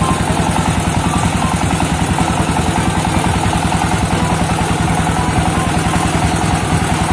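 Single-cylinder diesel 'shallow' engine running steadily with a fast, even beat as it drives a mustard oil expeller.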